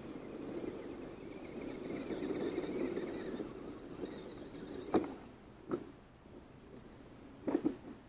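Axial SCX10 RC rock crawler's electric motor and geartrain whining as it crawls over a log. The whine fades by about four seconds in, then a sharp knock about five seconds in, another shortly after, and a quick cluster of knocks near the end as the truck rolls over and tumbles down the dirt slope.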